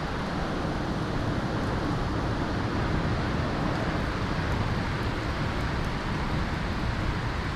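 Hurricane wind and rain: a steady rushing noise with no let-up.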